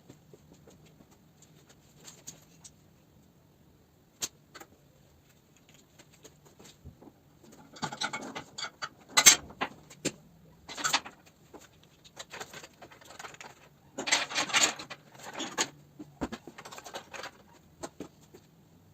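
Scattered metallic clinks and taps, with two spells of rattling and scraping, like hand tools and metal parts being handled. The second spell comes about three quarters of the way in.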